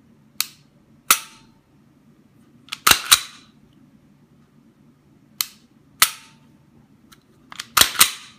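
Dry-firing an unloaded Glock 19 fitted with an Orange County custom trigger and Ghost Tactical 5.0 connector: sharp trigger and striker clicks, the louder one with a short metallic ring, each followed by a quick run of clacks as the slide is worked back to reset the trigger. The cycle happens twice.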